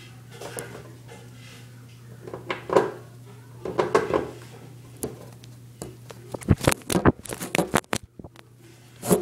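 Irregular knocks, scrapes and rattles close to the microphone, densest about six to eight seconds in, as the phone camera on the floor is bumped and shifted. A steady low hum runs underneath.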